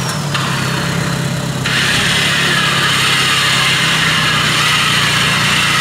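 Suzuki Samurai trial truck's turbo-diesel engine running steadily at low revs as it crawls over the rock obstacle, with a loud hiss above it and a high whistle that drops in pitch over the first second.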